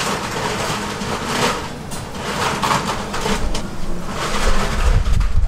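Busy street-food stall background noise: a steady din with a low rumble building in the second half.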